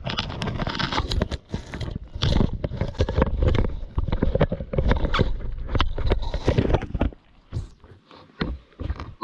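A lion biting and chewing on a camera, its teeth scraping and knocking against the body right at the microphone in a dense run of clicks and rubbing. The noise drops off about seven seconds in, leaving a few scattered knocks.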